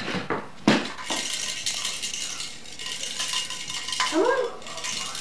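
A sharp knock, then metallic jingling and rattling for about three seconds, as of a shaken rattle or bell toy. About four seconds in comes a short rising-then-falling vocal sound.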